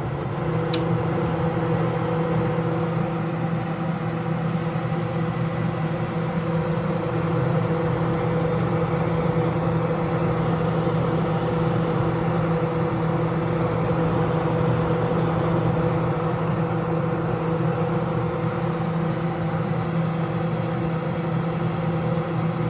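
Vintage Kenmore dehumidifier running on its high setting: a steady fan rush over the hum of its motor, with one sharp click about a second in.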